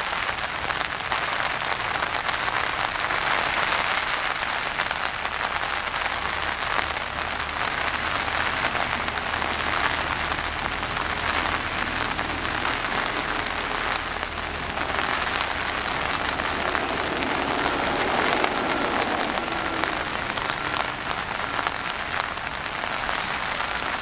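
Steady rain falling on shallow water and wet mud.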